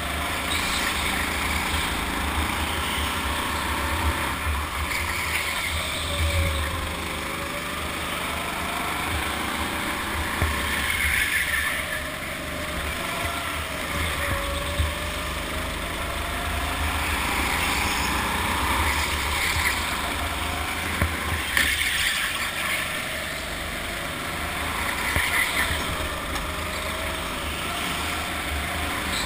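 Go-kart driving hard around a track, its motor note rising and falling with speed through the corners, over a steady wind rumble on the microphone.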